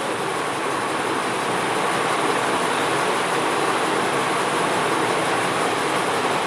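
Steady hiss of onion and tomato paste frying in hot oil in a kadai, even and unbroken throughout.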